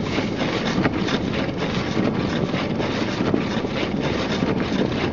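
Steady road and tyre noise inside a front-wheel-drive car driving on a snow-covered road.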